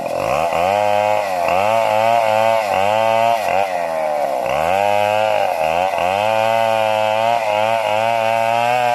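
Chainsaw engine running and being revved up and down over and over, its pitch rising and falling about once a second.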